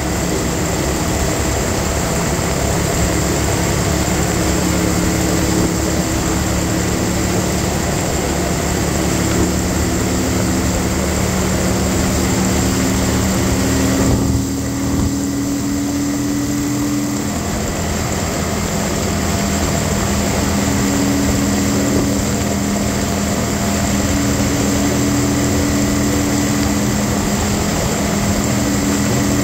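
Kawasaki Vulcan 900 Classic SE's V-twin engine running steadily at highway cruising speed, heard from on the bike over a constant rush of wind and road noise. About halfway through the wind noise eases briefly and the engine note shifts a little before settling back.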